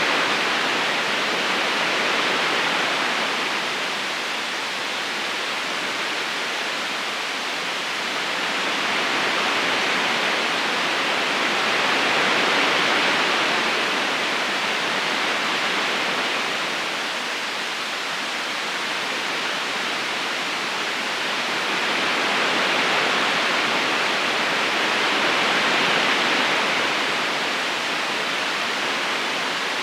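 Steady rushing of a flowing river current, with no separate splashes or calls standing out, swelling and easing slowly every several seconds.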